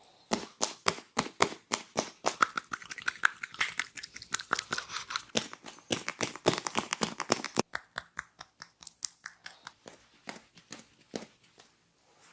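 Rapid rhythmic hand strikes of a barber's percussive head massage, about four sharp slaps a second, thinning to slower, more spaced strikes over the last few seconds. A crinkling rustle runs under the strikes in the middle stretch.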